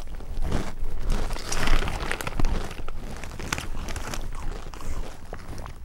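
Crinkling and rustling of a plastic snack bag being handled, with small irregular clicks and crunches.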